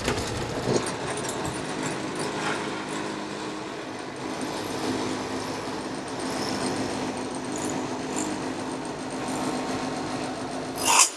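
Electric power tool running steadily, with a faint constant hum.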